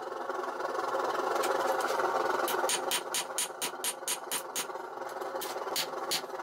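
Hand hammer striking a red-hot 5160 steel knife blank on an anvil. The blows come in a fast run of about five a second starting a couple of seconds in, pause briefly, then a few more near the end. A steady rushing noise runs underneath.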